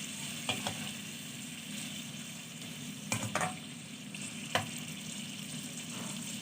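Cubed chicken breast sizzling as it sautés on the stove, stirred with a few sharp knocks of the utensil against the cookware about half a second in, around three seconds in and again near four and a half seconds.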